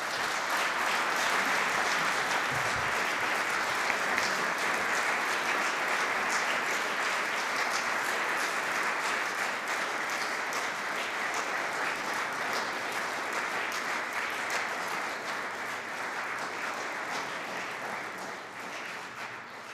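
An audience applauding, a dense, steady clapping that thins and dies away near the end.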